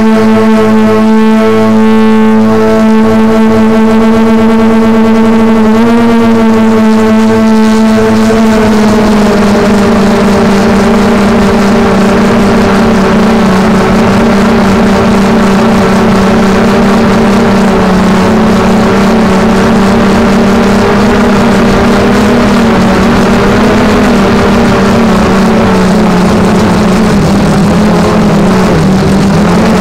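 Drone's motor and propellers whining steadily as heard from its onboard camera, a loud hum with one strong pitch that steps slightly twice early on and wavers a little later.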